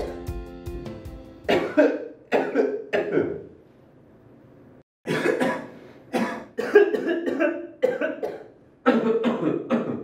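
Background music fading out, then men coughing: three coughs, a brief near-silent pause, then a run of quick coughs about every half second.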